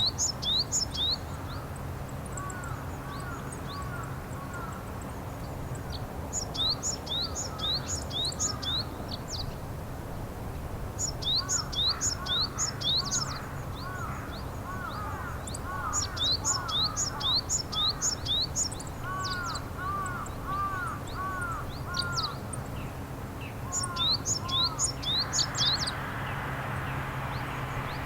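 Japanese tit calling: five short bursts of quick, high chirping notes, each a second or two long, a few seconds apart. Lower, softer arched calls from another bird come in between them, and a steady rushing noise starts near the end.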